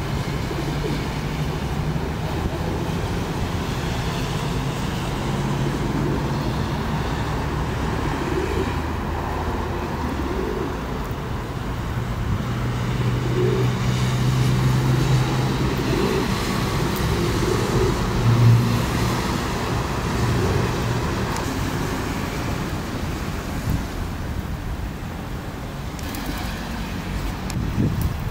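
Road traffic on a busy city street: cars, minibuses and buses running and passing, with a steady engine hum. It gets louder through the middle, with one brief peak just past halfway.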